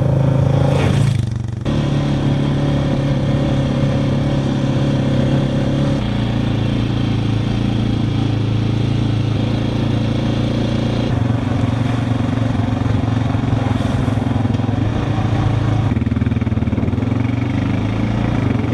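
Quad (ATV) engine running under way while riding. About a second in, the quad passes close by with a brief rush of noise. The engine note changes abruptly several times as the shots change.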